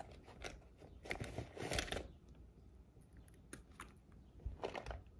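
Hands rummaging in a small zippered pouch: soft rustling of fabric and the items inside, with a few light clicks and taps as a small item is taken out and handled.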